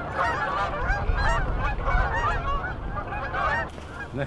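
A large flock of Canada geese honking, many overlapping calls at once, with a low rumble underneath. The honking drops away shortly before the end.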